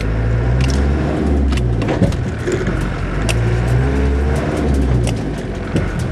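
Land Rover 4x4's engine heard from inside the cab while driving along a rough grass track, its note swelling and easing, with frequent knocks and rattles from the vehicle jolting over bumps.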